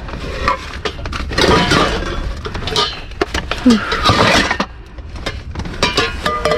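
Hard objects and trash clattering and clinking as a dumpster's contents are rummaged through, with many sharp knocks and clinks.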